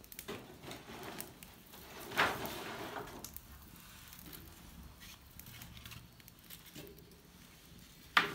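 Dry firewood sticks being shifted and pushed into a wood fire under a large cooking pot: wood scraping and knocking, with a louder scrape about two seconds in and one sharp knock near the end, over scattered small crackles from the fire.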